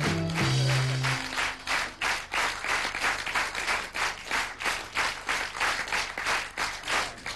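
Theatre audience applauding, clapping together in time at about three claps a second. The last held notes of the band's accompaniment stop about a second in.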